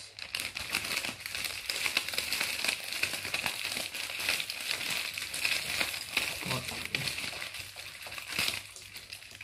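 A plastic zip-lock bag and the aluminium foil inside it crinkling steadily as hands pull the bag open and handle the foil-wrapped food.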